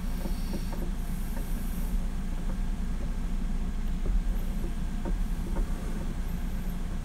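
Steady low mechanical rumble with a few faint clicks.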